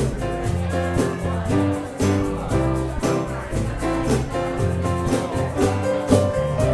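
Music with bass notes and a steady beat.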